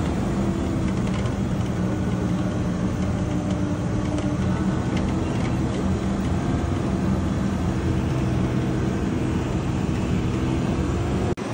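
Engine of an amphibious Duck tour vehicle running with a steady hum, over a haze of rushing water from shallow rapids.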